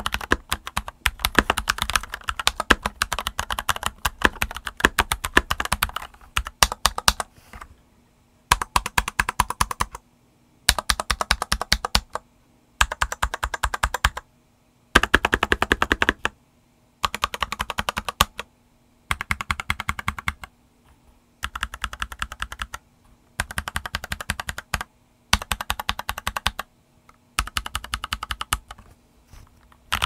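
Keychron V2 65% mechanical keyboard, stock, with JWK T1 tactile switches and double-shot Dark Hammerhead clone keycaps, being typed on. It types steadily at first, then from about eight seconds in comes in short bursts of rapid keystrokes with brief pauses between them.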